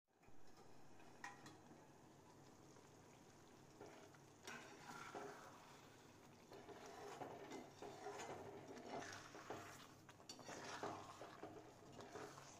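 Faint scraping and clinking of a metal spatula stirring thick, simmering tomato thokku in a cast-iron pan. The strokes are irregular and begin about four seconds in, after a faint steady hiss.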